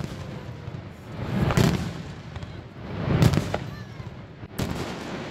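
Aerial firework shells bursting overhead: a sharp bang at the start, two longer booms about a second and a half apart in the middle, and another sharp bang near the end.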